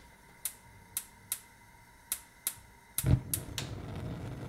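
Gas hob burner being lit: the spark igniter clicks about eight times, then the gas catches about three seconds in with a soft low whoomp and goes on burning with a steady low rush of flame.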